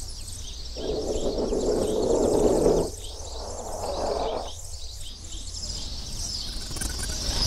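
Many small birds chirping rapidly and continuously in short high notes. In the first half, a muffled rushing noise swells up twice and fades.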